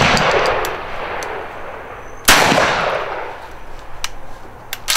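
Shotgun fired with its muzzle pressed into a pillow. The tail of one shot fades at the start, and a second sharp report comes about two seconds in, echoing and dying away over a second or so. A few short clicks follow near the end.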